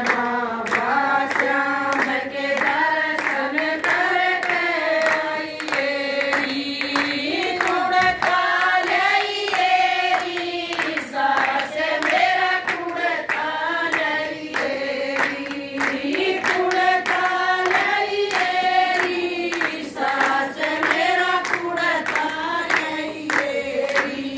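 A group of women singing a devotional bhajan together, with steady rhythmic hand-clapping keeping time.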